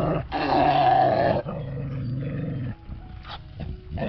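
A dog growling: two long, drawn-out growls, the second a little quieter, then softer short sounds.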